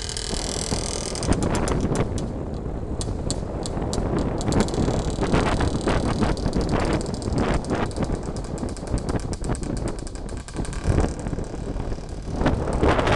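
Running vehicle noise from a car following an IZh-56 motorcycle, whose single-cylinder two-stroke engine runs ahead as the bike pulls away. Wind buffets the microphone in uneven gusts.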